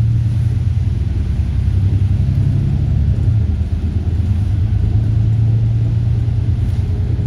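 A moving bus heard from inside the cabin: the engine's steady low drone with road rumble.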